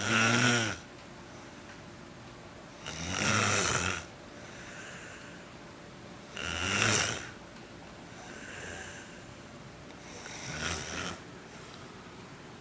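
A man snoring in his sleep: four loud snores about every three and a half seconds, the last one weaker, with softer breaths between them.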